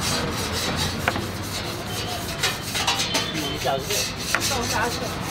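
A baked pizza being cut on a wooden serving board: the cutter's blade rasps through the crust and scrapes the wood in repeated short strokes.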